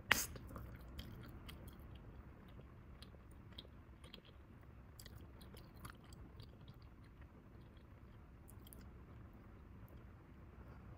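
A bubble-gum bubble pops sharply right at the start, then the gum is chewed quietly with small wet clicks and smacks of the mouth. Another bubble pops at the very end.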